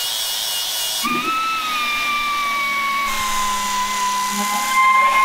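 Angle grinder running with its disc pressed against steel rivet heads, a steady hiss under a high whine. About a second in the whine shifts, then slowly sinks in pitch as the grinder is held under load.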